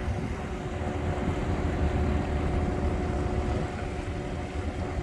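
Motor yacht's engine running steadily: a low rumble with an even hum over it.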